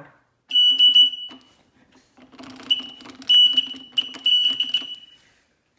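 An elevator car panel's alarm button sounding its alarm, a very loud high-pitched ringing tone. It rings for about a second, stops, then rings again for about two and a half seconds with short breaks as the button is pressed again.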